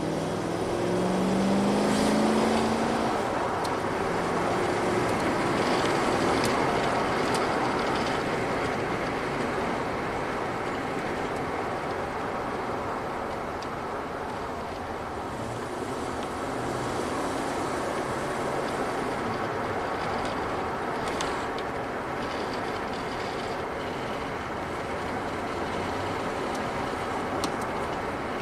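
2006 Toyota Tundra's 4.7-litre V8 heard from inside the cab on the road: the engine note climbs as the truck accelerates over the first few seconds. It then settles into steady engine and road noise as the truck is engine-braked down through third and second gear, a deceleration with the fuel cut off.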